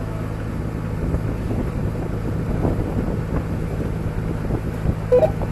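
Resort boat's engine running with a steady low hum, under wind and water noise on the microphone.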